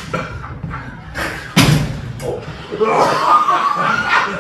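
A man's voice imitating a velociraptor, with bending, screech-like calls in the second half, and a loud sudden thump about a second and a half in as he gets up onto a table.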